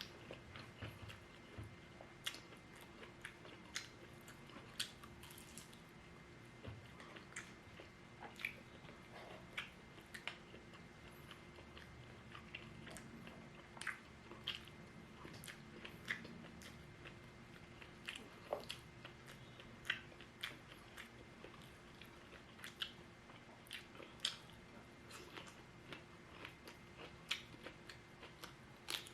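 Close-miked eating of shrimp and fried lumpia: bites and chewing with irregular crisp crunches and wet mouth clicks, a few each second.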